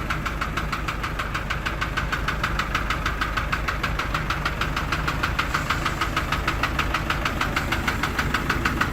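Isuzu light truck engine idling with a rapid, evenly spaced ticking that never lets up.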